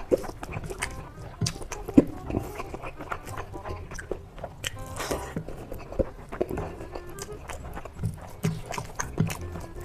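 Close-miked eating sounds: irregular bites, chewing and small crunching clicks, with a louder rustling burst about halfway through.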